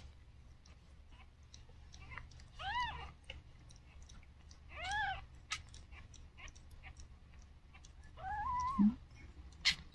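Newborn kitten mewing three times, thin high cries that rise and fall, a couple of seconds apart.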